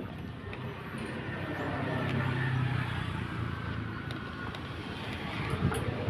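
A motor vehicle's engine running, with a low hum that swells about two seconds in and then fades again.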